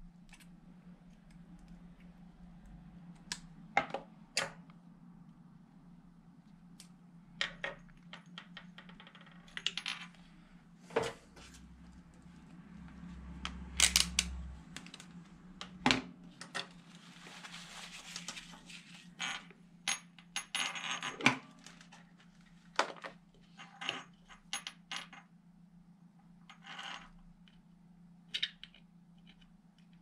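Irregular metallic clinks and clatters of pliers and other hand tools gripping the metal antenna base and being set down on a wooden tabletop, with a brief rustle partway through. A low steady hum runs underneath.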